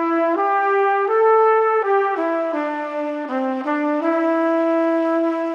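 Music: a single melody line on a brass-sounding instrument, playing a quick run of notes and then settling on one long held note.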